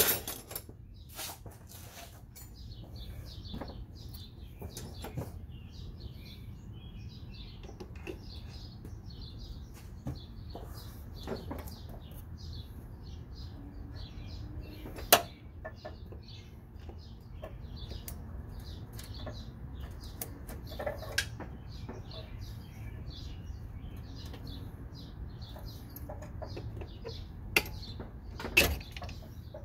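Birds chirping busily and steadily over a low, even rumble, with a few sharp knocks and clicks standing out, the loudest about halfway through and near the end.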